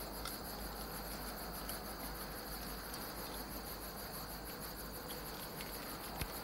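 Crickets chirping in a steady, high, rapidly pulsing trill.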